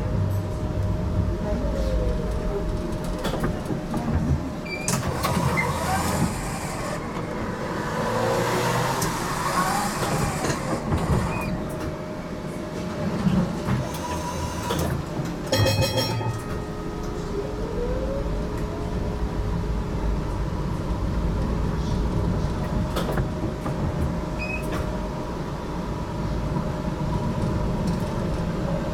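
GTL8 articulated tram running on its rails, heard from inside: a steady rumble of wheels on track under the whine of the electric traction motors. A motor tone falls about three seconds in and rises again around seventeen seconds in, as the tram slows and picks up speed. There is a louder hissing stretch from about five to eleven seconds, and a brief rapid ticking near sixteen seconds.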